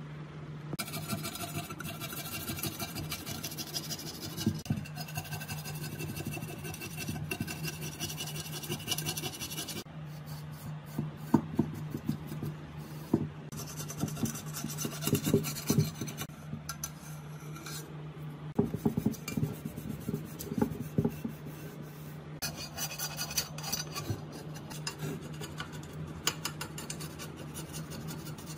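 Scraping rotted surround and old glue off a speaker frame with a steel ruler: repeated rasping scrapes with scattered sharp knocks and scrapes in the middle, over a steady low hum.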